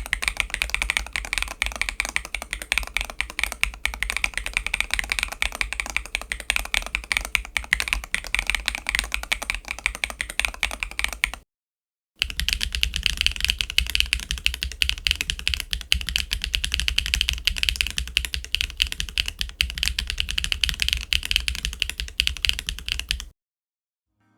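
Fast, continuous typing on a mechanical keyboard fitted with HMX Retro J switches, a dense run of key clacks. It comes in two takes with a short silence a little before halfway, and the second take sounds slightly brighter than the first.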